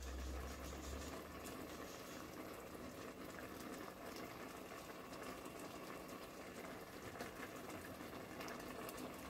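Faint, steady bubbling of a pot of lentil stew simmering on the stove, with small scattered pops.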